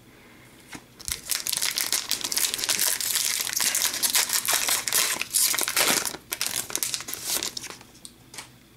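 The wrapper of a 2014-15 Upper Deck Series 1 hockey card pack being torn open and crinkled in the hands. It is a dense crackling that starts about a second in and dies down near the end.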